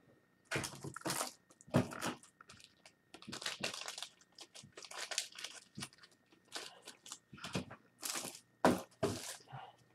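Crinkling, rustling handling noise in irregular short bursts, as hands move and handle items on a tabletop.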